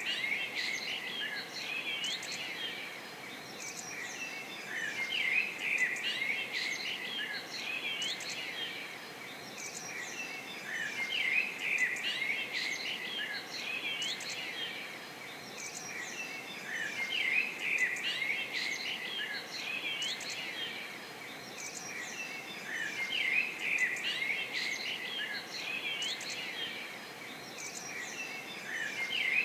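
Chorus of many small birds chirping and singing at once, with quick rising and falling calls. The ambience is a short recording that repeats about every six seconds.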